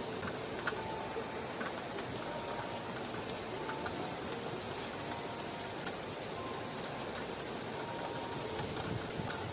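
Steady rushing noise of fast-flowing floodwater.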